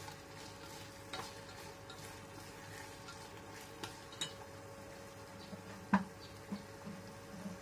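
Wooden spatula stirring squid chili sambal in a stainless steel saucepan, with a faint sizzle and scattered light scrapes and clicks over a steady faint hum. About six seconds in, a louder knock as the spatula is laid down in the pan.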